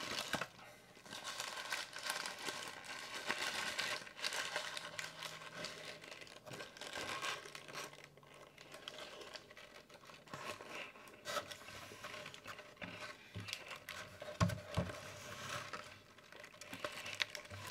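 Paper wrapper on a burrito crinkling and crackling as it is handled and bitten into, with bites and chewing close to the microphone.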